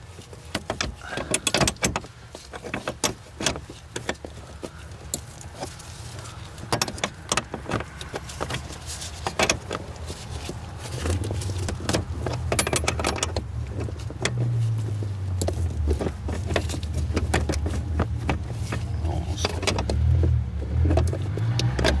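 Small metal clicks and taps of a 17 mm wrench working a nut in short strokes, tightening a fastener up snug. A low wavering hum joins about halfway through.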